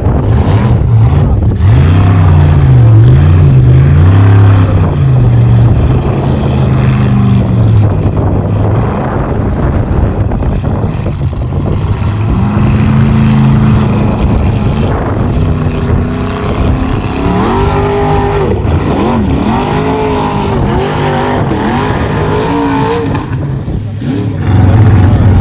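Formula Offroad race truck's engine revving hard, its pitch rising and falling again and again as the throttle is worked on and off, with faster swings in the second half.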